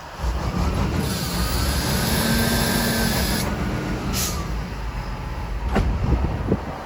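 Heavy diesel snow-removal machinery running: a steady low rumble, with an engine note that rises and falls midway. A hiss starts about a second in and stops sharply at about three and a half seconds, and a few knocks come near the end.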